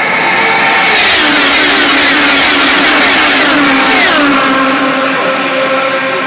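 A pack of IndyCars' high-revving Honda 3.5-litre V8s passing at racing speed, several in quick succession, each engine note dropping in pitch as the car goes by. The passing is loudest in the first few seconds, then steadier engine sound carries on.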